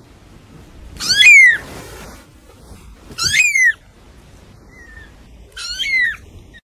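Very young kitten mewing: three high-pitched mews about two and a half seconds apart, each rising and then falling in pitch, the first the loudest.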